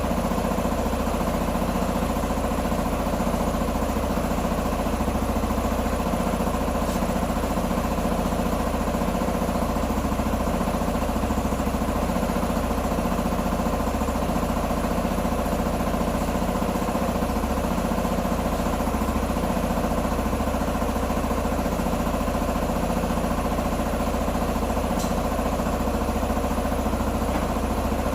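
A 125 cc motorcycle engine idling steadily, with no change in speed.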